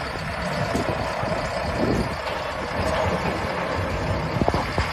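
Busy street noise: motor vehicle engines running steadily, with a few sharp knocks near the end.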